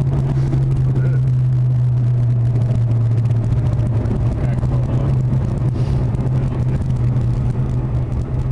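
Car engine running with a steady low drone while driving, heard from inside the car's cabin.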